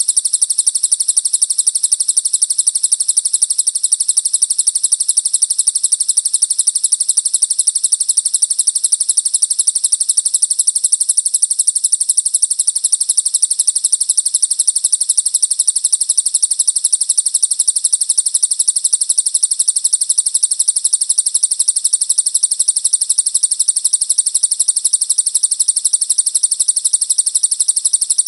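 Recorded songbird song used as a masteran training track: a loud, unbroken, very rapid high-pitched trill that repeats evenly without a pause.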